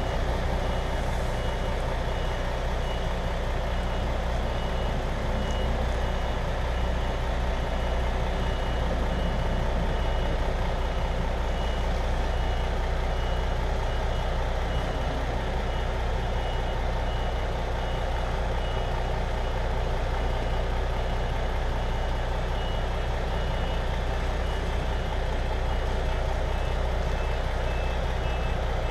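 A vehicle's reversing alarm beeps at a steady, even rhythm over the steady low hum of a diesel engine.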